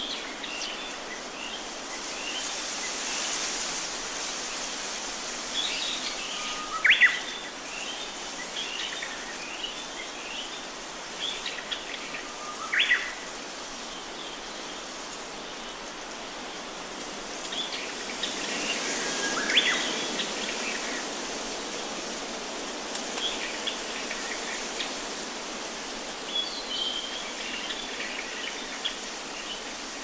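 Wild birds calling over a steady background hiss: many short, high chirps throughout. The loudest are three calls about six seconds apart, each a short whistle that sweeps sharply upward.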